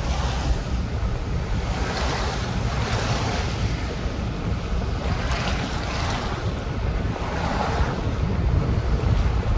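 Wind buffeting the phone's microphone: a steady low rumble with irregular swells of hiss every second or two.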